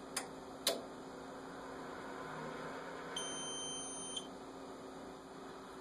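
A homemade electronic dummy load running its start-up system check: two sharp relay clicks about half a second apart, then one high-pitched buzzer beep lasting about a second, over a faint steady hum.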